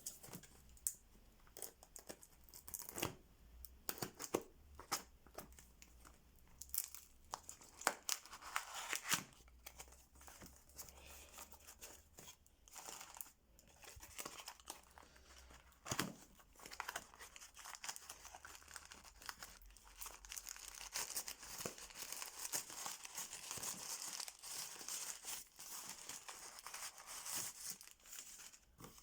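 Packing tape being torn and peeled off a heavily taped parcel: a run of sharp rips and crackles, then a longer stretch of steady crinkling and rustling of the wrapping in the second half.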